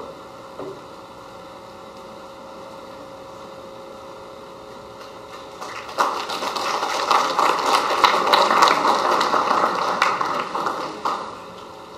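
Quiet room tone, then an audience applauding, starting suddenly about halfway through, clapping for about five seconds and dying away shortly before the end.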